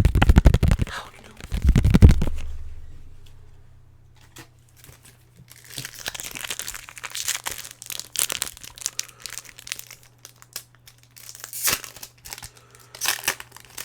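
A quick run of loud tapping knocks in the first two seconds, then the foil wrapper of a Pokémon booster pack crinkling and tearing as it is opened.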